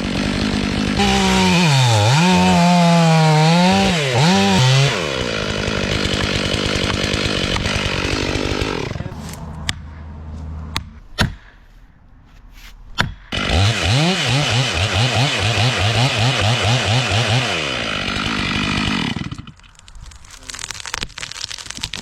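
Chainsaw running at high revs and cutting wood, its pitch sagging and wavering under load, in two long runs with a quieter lull and a few sharp clicks about halfway.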